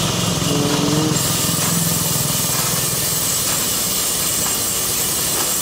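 Large sawmill log saw (aara machine) and its drive running: a loud, dense, steady rattling noise. A thin high whine joins about a second in.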